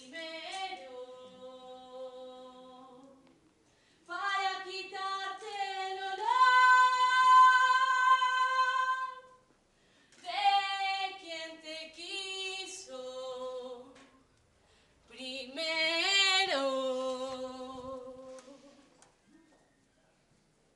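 A woman singing unaccompanied in long, held notes, in four phrases separated by short pauses, stepping up to a high sustained note in the second phrase.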